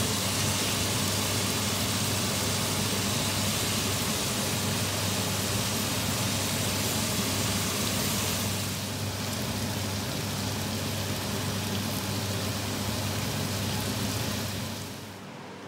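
Diced cucumber, celery, onion and potato sizzling in a pot, a steady hiss over a low hum. The hiss eases about eight seconds in and cuts off near the end.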